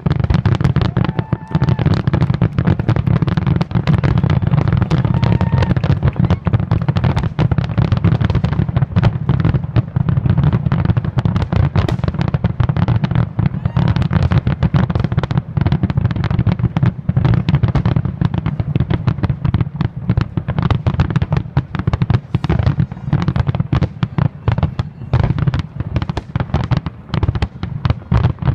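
Aerial fireworks shells bursting in a rapid, nonstop barrage. The bangs follow so closely that they run together into a continuous low rumble, with sharp cracks on top.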